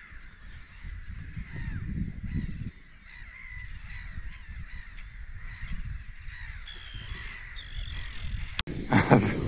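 Many birds calling over one another in a steady stream of short calls, over an uneven low rumble; it breaks off abruptly near the end.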